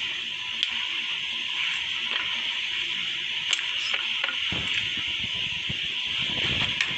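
Cloth rustling and being pushed about at a sewing machine, with a few light clicks over a steady hiss; the handling grows busier about two-thirds of the way through.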